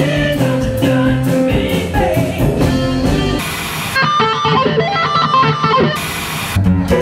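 Live band music, then an electric guitar solo from about four seconds in. Short bursts of TV-static hiss come at the cuts between clips.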